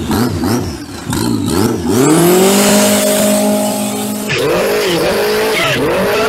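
Toyota 3S turbocharged inline-four engine in a jet boat being revved up and down, then climbing to a high, steady pitch under throttle with a rush of water spray, then its revs dipping and rising again.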